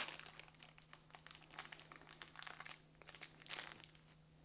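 Foil trading-card pack wrapper crinkling in the hands, in a series of irregular rustles that are loudest about three and a half seconds in.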